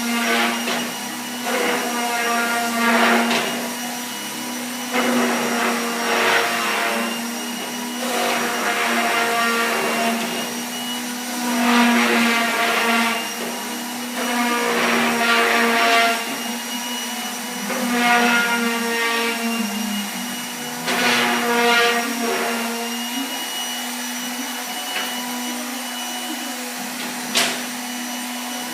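Electric power sander running steadily on wood, its motor humming. A louder rasping whine swells up every few seconds as it bears on the surface. There is one sharp tick near the end.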